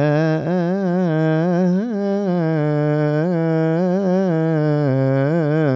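A man's voice chanting one long, melismatic held vowel in Coptic Orthodox liturgical chant, the pitch wavering in small ornamental turns, with a brief upward swell about two seconds in.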